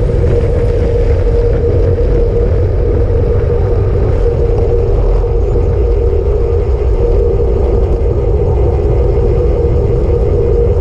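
Wind rush and tyre noise on a handlebar-mounted camera of a road bike riding at speed: a steady loud low rumble with a constant hum.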